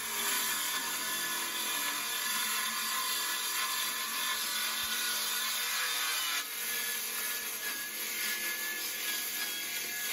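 Cordless circular saw running and cutting through a plywood sheet: a steady high motor whine with the rasp of the blade in the wood. It drops a little in level about six and a half seconds in.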